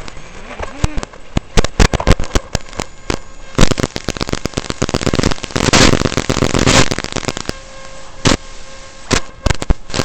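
Crackling static: rapid irregular clicks and pops with longer bursts of hiss about a third and about two thirds of the way in, from the analog FPV video link's audio as the signal breaks up with the quadcopter down in the grass.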